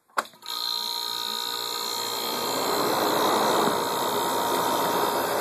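A click as it is switched on, then a Carrier window air conditioner's compressor starting and running steadily, a loud hum with a steady whine. The running is healthy: it sounds good, with the note of a twin-cylinder or big-bore single-cylinder compressor.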